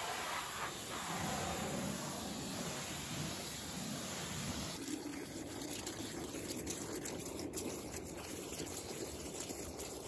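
Kranzle K7 pressure washer spraying a wheel with a steady hiss. About halfway through it changes to water jetting into a bucket of soapy water, churning and frothing up suds.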